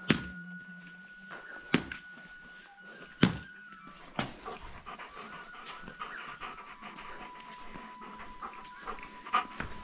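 A dog panting, with a few sharp knocks spaced about a second apart in the first four seconds.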